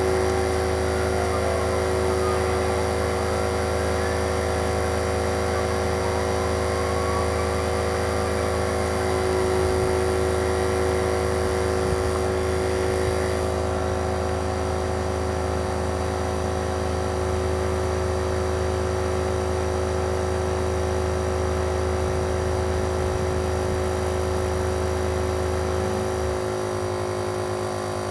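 Superflow dual-cylinder 12 V portable air compressor running steadily while inflating a tire in the final stretch toward 35 psi. Its low note drops about 26 seconds in.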